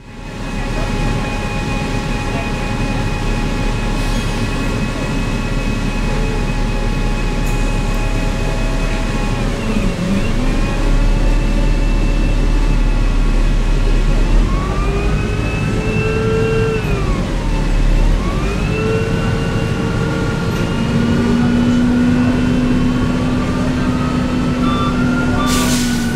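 Cabin sound of a 1998 New Flyer C40LF bus running on a hydrogen and natural gas blend through its Cummins C Gas Plus engine: a low drone under several whining tones that fall and rise again twice, the strange whine the bus is known for. A short hiss near the end.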